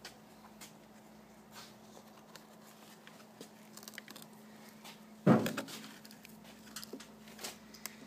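Light clicks and taps of tiles and plastic tile-leveling parts being handled, with one loud thump about five seconds in, over a faint steady hum.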